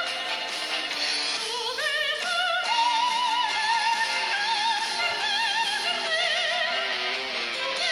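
Music with operatic-style singing, its held notes wavering in a wide vibrato, played through a smartphone's built-in loudspeakers with little bass.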